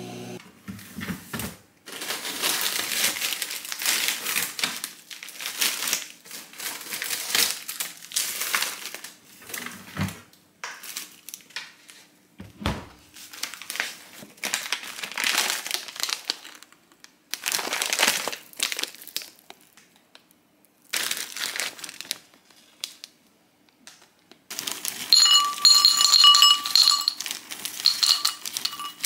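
A plastic zip bag crinkling in irregular bursts as it is handled, with two dull knocks around the middle. Near the end, hard rice-cake pieces tip out of the bag and clatter into a ceramic bowl, which rings with each hit.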